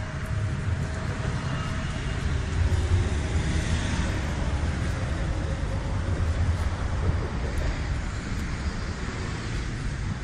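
Steady low rumble and road noise of a moving vehicle, heard from inside as it travels along a city street.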